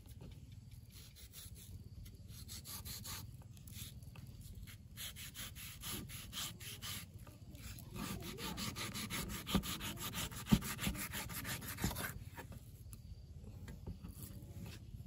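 Rapid, regular scraping strokes on wood, several a second, growing denser and louder past the middle. A few harder knocks come about two-thirds through.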